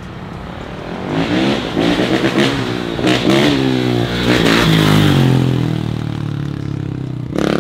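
Dirt bike engine revving hard as the bike is ridden past in a wheelie. The pitch climbs and drops several times with gear changes and throttle blips, loudest around the middle, then fades as the bike moves away.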